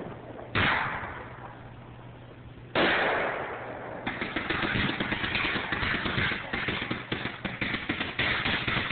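Fireworks going off: two loud bangs about half a second and three seconds in, each echoing away, then from about four seconds a dense, rapid crackling of many small pops.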